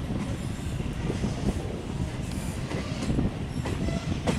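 Moving passenger train heard from alongside its coach: steady low rumble and wheel-on-rail running noise with air rush and occasional sharp clicks.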